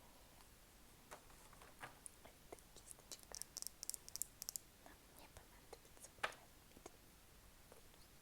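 Faint, close-miked ASMR clicks and taps, scattered at first, then a quick run of crisp high clicks in the middle and one sharper click about six seconds in.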